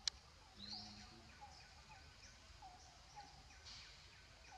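Faint background of repeated short bird calls, about one or two a second, with a sharp click at the very start.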